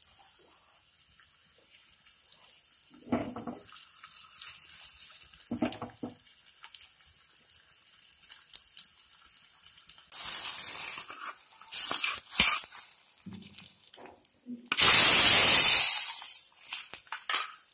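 Small onions, dried red chillies and curry leaves frying in oil in a small pan, faint with scattered crackles. Near the end comes a loud hissing sizzle of about a second and a half as the hot tempering is poured into the fish curry in a clay pot.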